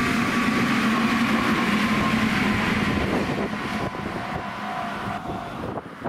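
Electric commuter train passing through a level crossing: a loud steady rush of wheels on rails, with the crossing's warning bell ringing faintly underneath. The train noise eases about four seconds in and drops away near the end as the last car clears.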